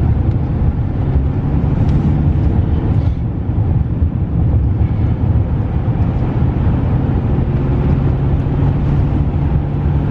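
Road and engine noise inside a moving car's cabin: a steady low drone with an even engine hum.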